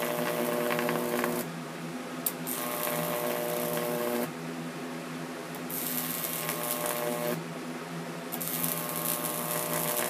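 High-voltage electric arc from a salvaged microwave oven transformer's secondary, drawn from a terminal with a grounded probe: a buzzing, hissing crackle over an electrical hum, in four stretches of about one and a half to two seconds each. A weaker hum carries on between them.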